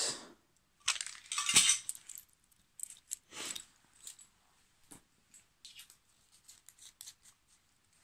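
Peppermints rattling inside a small plastic mint box in a few short bursts, loudest about a second in, then faint clicks and clinks of small items being handled.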